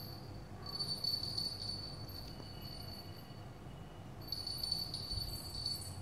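A small bell inside a cat's toy ball jingles as kittens bat the ball across a tiled floor, in two spells: about a second in and again from about four seconds in.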